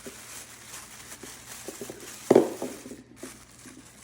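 An advent calendar door being opened and the small gift inside handled: light crinkling, rustling and small clicks, with one louder knock a little over two seconds in.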